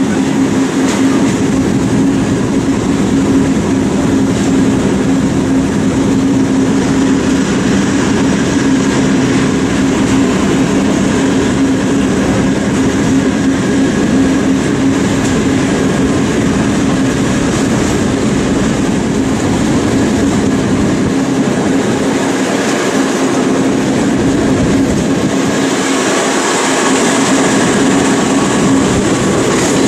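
A train running behind a MÁV M43 diesel-hydraulic locomotive: continuous wheel-on-rail rumble with a constant low engine hum. A louder hiss comes in near the end.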